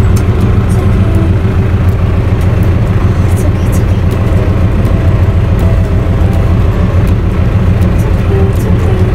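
Loud, steady motor drone with a low hum that holds level throughout, under faint voices.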